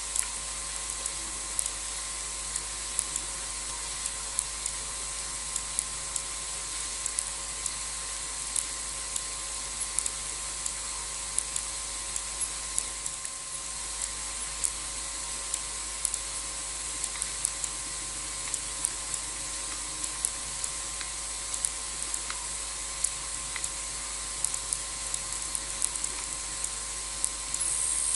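Steady hiss of night ambience through the camera's microphone, with a thin high steady tone and scattered sharp ticks throughout; the level lifts a little just before the end.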